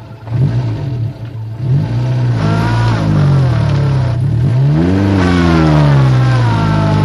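1960s Ford Águila's engine running unevenly just after starting and being revved, its pitch rising and falling twice before settling to a steadier run.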